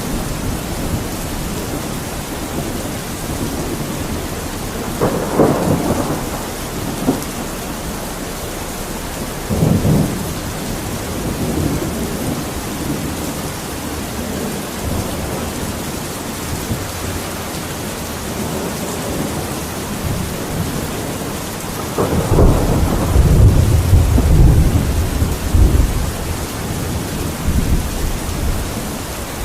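Thunderstorm: steady rain falling, with rolling thunder. Short rumbles come about five and ten seconds in, and a longer, louder, deep rumble near the end.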